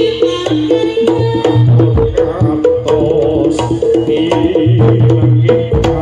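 Jaranan music played live by a Javanese gamelan ensemble: a fast repeating melodic figure with held low notes and frequent drum strokes.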